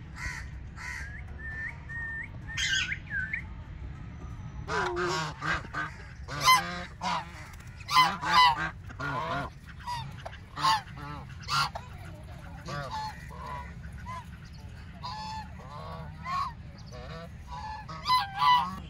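Domestic geese and ducks calling, with loud honks coming in quick runs. Near the start, a few short high chirps from rose-ringed parakeets.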